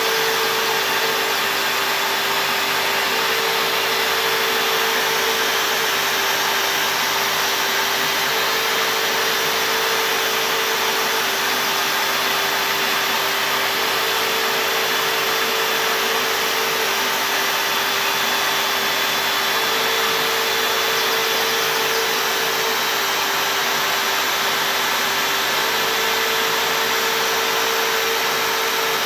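CNC router spindle cutting into a board, with dust extraction running through the hose at the bit: a steady whirring hum. A slightly higher tone comes and goes every few seconds as the machine traces the letters.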